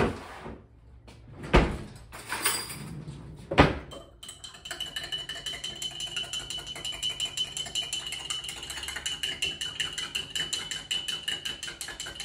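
A spoon stirring a drink in a glass, clinking rapidly and evenly against the sides with a light ringing tone from the glass. This follows a few sharp knocks and clatters in the first few seconds.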